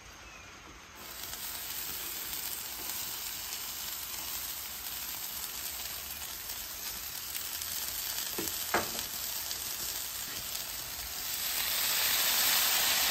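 Chopped green onions, then sautéed mushrooms and bell peppers, sizzling as they hit a hot Pit Boss flat-top griddle. The hiss starts about a second in and gets louder near the end as the second batch goes down, with one short tap about two-thirds of the way through.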